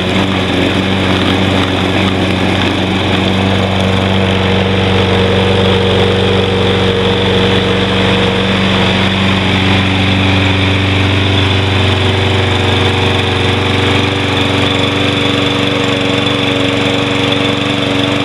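Toro Personal Pace mower's 190 cc Briggs & Stratton engine running steadily, still burning old stale gasoline.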